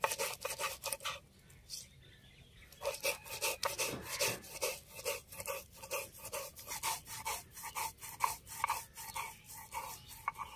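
Rice being ground into a white paste on a shil-nora, a pitted Bengali grinding stone, with the roller pushed back and forth over it: a repeated rasping rub, stroke after stroke. The strokes stop for a moment about a second in, then go on.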